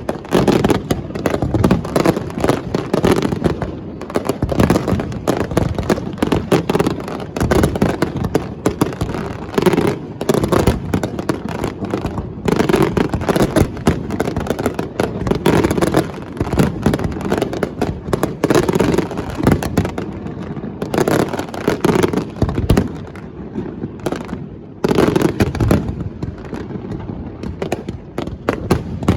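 Fireworks display: a dense barrage of bangs and crackles going off in quick succession. It thins out to fewer, separate bangs with short gaps in the last third.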